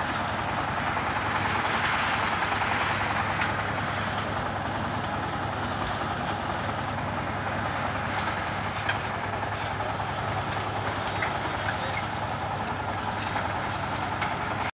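An engine-driven two-bag concrete mixer running steadily, its geared drum turning with a load of 1:4:8 plain cement concrete inside. A few faint knocks sound in the second half.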